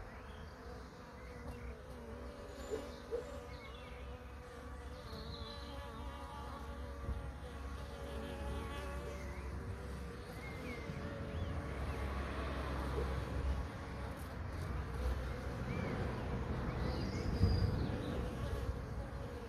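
Honeybees buzzing at a wooden hive entrance: several wingbeat hums overlap, wavering and sliding in pitch as individual bees come and go, over a steady low rumble.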